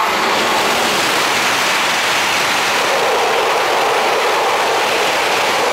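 E5 series Shinkansen passing through the station at high speed without stopping: a loud, steady rush of air and wheel-on-rail noise.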